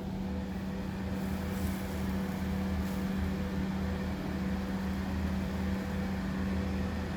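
Hydraulic lift's pump motor running with a steady hum and a lower drone under it. The lift is low on oil.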